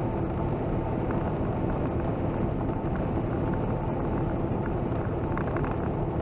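Steady drone inside a semi truck's cab at highway speed: the truck's engine and tyre and road noise run on evenly, with a faint steady hum over it.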